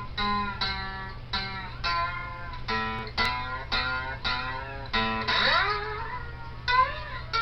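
Outro music: a guitar picking single notes, about two a second, with a few notes bent in pitch near the end.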